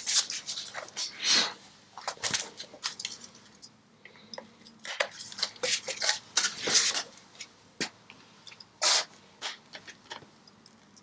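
Irregular metallic clicks, clinks and scrapes of hand tools working a drilled-out baffle (dB killer) loose inside an Akrapovic titanium exhaust silencer.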